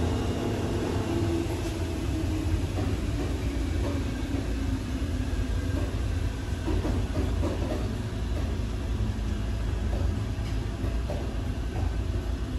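Steady low rumble of an RBDe 4/4 electric railcar running along the line, heard inside the car, with a faint hum over it.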